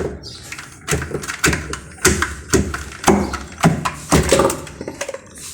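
A series of sharp knocks and taps, roughly two a second.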